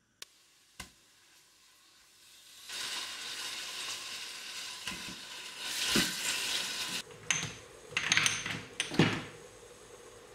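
Ground beef sizzling in hot oil over frying chopped vegetables, starting about three seconds in, with a couple of knocks. The sizzle drops away about seven seconds in, and spice jars clink and rattle three times.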